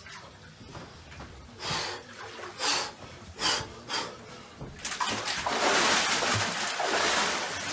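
A man takes four short, sharp breaths as he lowers himself into the ice-cold water of a plunge font, then about five seconds in a loud, continuous rush of splashing water as he dunks under and comes up.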